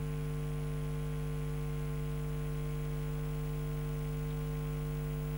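Steady electrical mains hum and buzz with a faint hiss, unchanging throughout.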